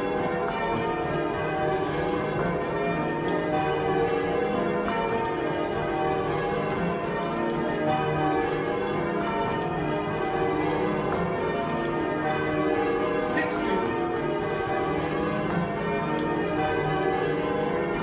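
Church tower bells ringing changes: a peal of many bells struck in continuous rotating sequence, their tones overlapping at a steady level.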